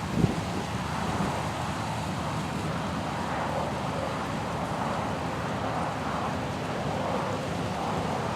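John Deere S690 combine running steadily while harvesting corn, with one short thump just after the start.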